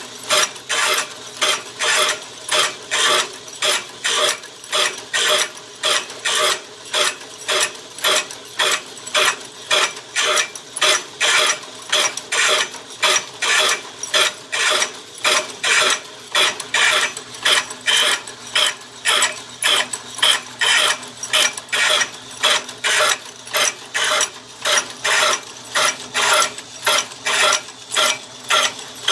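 Stump grinder teeth being sharpened on a grinding machine: short grinding strokes repeat evenly about twice a second over a steady motor hum.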